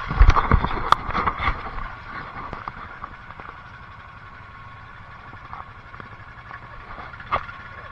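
Knocks and rubbing on a phone's microphone as it is handled, loudest in the first second and a half, then a steady background hum with one more knock near the end.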